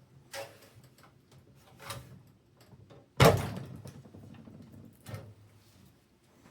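PC case parts being handled and set down: a few light knocks, and one loud clunk a little past three seconds in that trails off over about a second.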